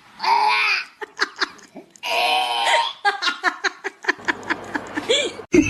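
A person laughing: two longer drawn-out cries, then a run of short quick bursts of laughter.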